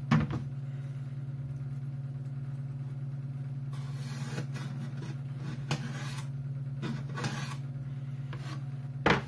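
Pencil scratching on a wooden panel as its outline is traced against a wooden box, over a steady low hum. A few knocks come from the wood panels being handled, the loudest near the start and near the end.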